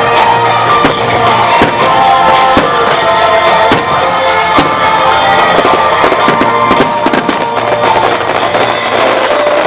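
Music playing over a starmine fireworks display, with firework shells bursting in irregular sharp bangs throughout.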